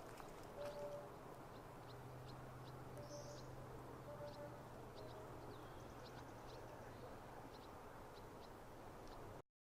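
Faint outdoor ambience with a weak hum and a few faint high chirps, such as distant birds, cutting to silence just before the end.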